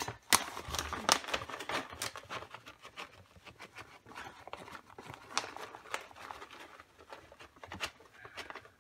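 Plastic bag of shredded cheese crinkling and rustling as it is shaken out over a baking dish: a steady run of irregular crackles.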